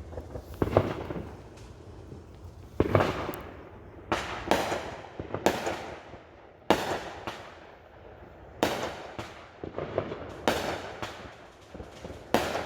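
Fireworks going off: about a dozen sharp bangs at uneven intervals, each trailing off in a fading echo, with smaller pops and crackles between them.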